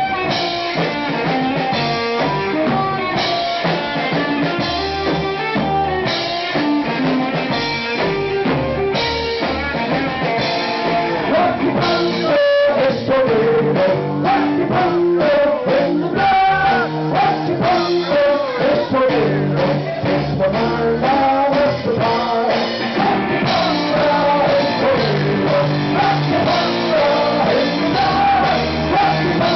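Live band playing funky rock: amplified cello, electric guitar and a drum kit, with singing.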